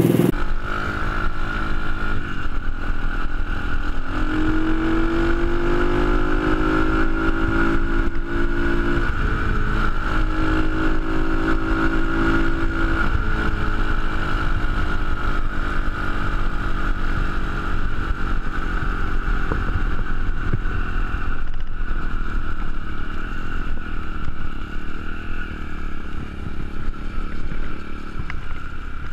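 125cc pit bike's single-cylinder four-stroke engine fitted with a Stomp stealth silenced exhaust, heard from on the bike while riding. The revs rise in two pulls with a gear change between, then hold at a steady cruise.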